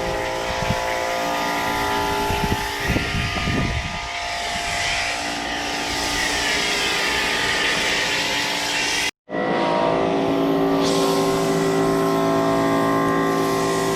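A car driving, its engine running at steady revs under tyre and wind noise. The sound cuts out for a moment about nine seconds in, then resumes with the engine holding a different steady pitch.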